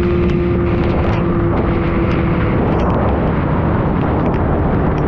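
Steady wind roar over an action camera on a superbike riding at highway speed in heavy rain. A steady engine tone fades out about two seconds in, and scattered sharp ticks come from raindrops hitting the camera.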